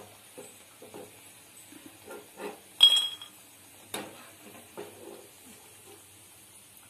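A steel perforated skimmer clinks and scrapes against a frying pan while scooping fried masala peanuts out of hot oil, a scattering of light knocks. About three seconds in comes one sharp, ringing clink, the loudest sound.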